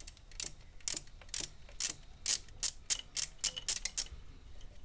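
Hand-held wire crimping and stripping pliers clicking and snapping as they are worked on wiring, a dozen or so sharp clicks at an uneven pace of roughly three a second.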